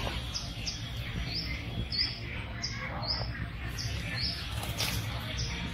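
A small bird chirping over and over, about two short, high, falling chirps a second, over a low steady rumble.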